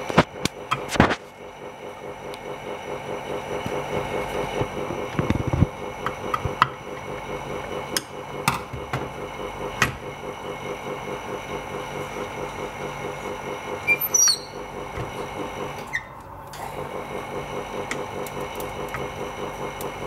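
Phone screen refurbishment machine running with a steady, pulsing hum, while its parts are handled with scattered clicks and knocks. There is a low thud about five seconds in, a short squeak near fourteen seconds, and the hum drops out briefly about sixteen seconds in.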